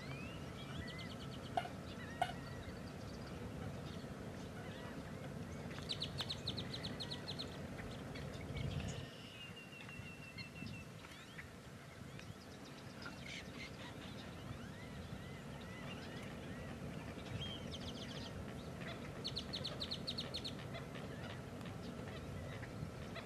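Wild birds calling around a marsh over a steady low background: a rapid, high, stuttering trill about six seconds in and again near the end, a thin held whistle around nine seconds, and scattered short chirps and calls in between.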